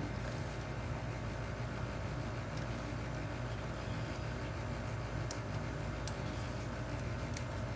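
A steady low machine hum, with a few light clicks about five, six and seven seconds in.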